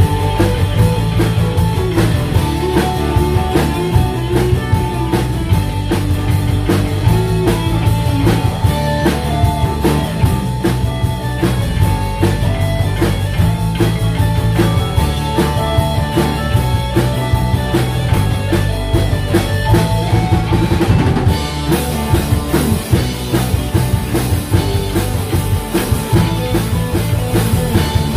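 Live rock band playing an instrumental passage: drum kit keeping a steady beat under bass, electric keyboard and amplified acoustic guitar. The cymbals grow brighter about three-quarters of the way through.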